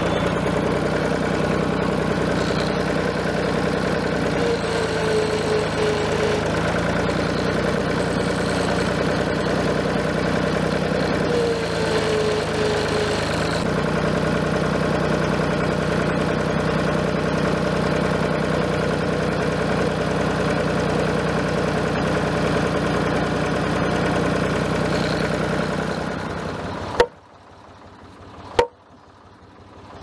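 Farm tractor engine running steadily, its pitch dipping briefly twice. Near the end the engine stops and two sharp knocks of a mallet on the timber beam follow, about a second and a half apart.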